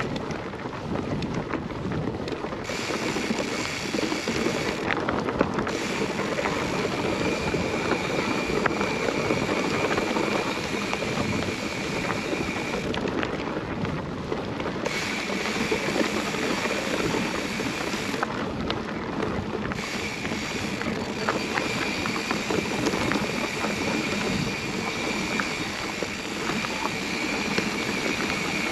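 Mountain bike rolling along a dirt singletrack: wind on the microphone, tyres on dirt and grass, and small knocks and rattles from the bike. A high steady buzz drops out and comes back about four times.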